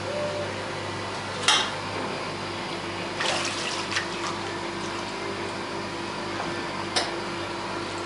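Stainless-steel ultrasonic washing unit running with a steady hum, with water splashing in three short bursts.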